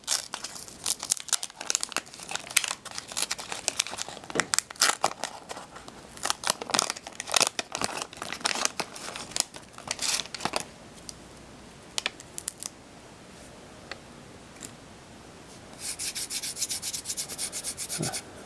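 The waxed paper wrapper of a trading card pack being torn open and crinkled by hand, crackling densely for about the first ten seconds, then with scattered crackles. A steady rustle of paper near the end.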